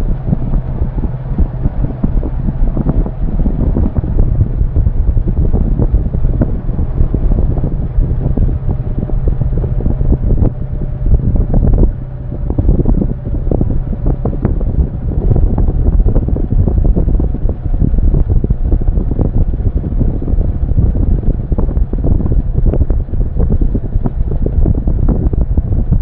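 Loud wind buffeting the microphone of a camera riding on a moving motorcycle, with the engine's low steady hum underneath.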